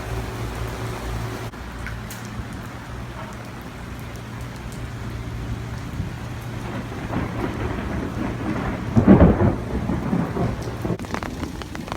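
Heavy rain falling steadily through a thunderstorm, with a roll of thunder that builds from about seven seconds in, is loudest around nine seconds and then rumbles away.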